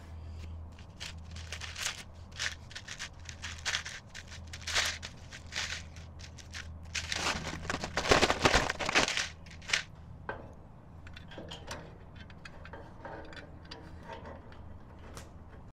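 Packing material being handled and crumpled: irregular crinkling and rustling, with a louder spell of crumpling about seven to nine seconds in, over a steady low hum.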